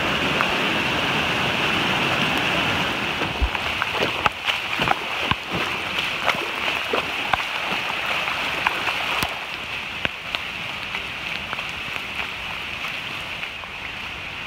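Steady rushing of a rain-swollen creek in flood, mixed with falling rain. Scattered sharp taps come through the middle, and the water noise drops a little about nine seconds in.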